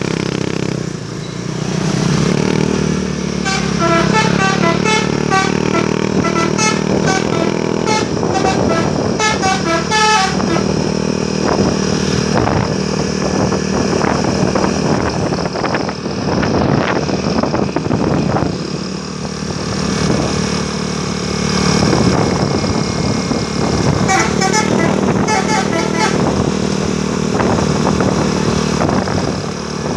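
A bus's 'telolet' multi-tone horn playing quick stepping melodies, one long run starting about three seconds in and a shorter one near the end, over a bus engine running steadily.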